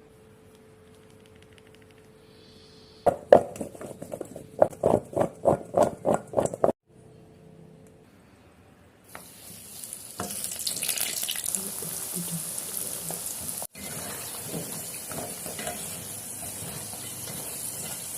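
Cassava sticks deep-frying in hot oil, a steady sizzle that starts about nine seconds in. Before it, a run of about ten loud, rhythmic knocks, roughly three a second, stopping abruptly.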